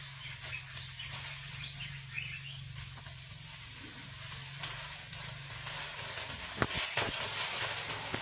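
Jungle ambience with a steady hiss, a few bird chirps and a low hum that stops about six seconds in; near the end, a few sharp snaps and rustles as an Asian elephant pushes through the undergrowth.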